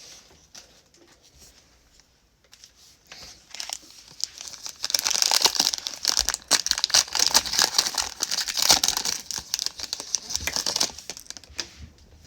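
A plastic trading-card pack wrapper being torn open and crinkled in the hands. It is quiet at first, then a dense crackling with many sharp snaps runs from about four seconds in until near the end.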